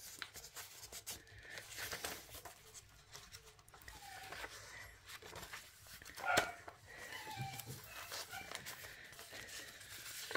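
Paper pages and card tags of a handmade junk journal rustling and flapping as pages are turned and tags handled, with a few short pitched sounds in among them, the loudest about six seconds in.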